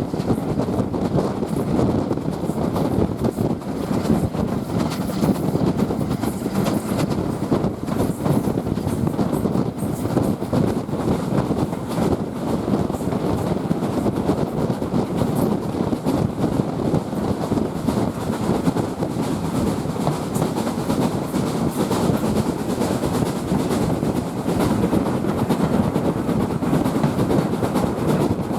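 Steam-hauled heritage passenger train behind SR Q Class 0-6-0 locomotive 30541 running steadily along the line, heard from aboard. There is a continuous rolling rumble, with the clickety-clack of the carriage wheels over the rail joints.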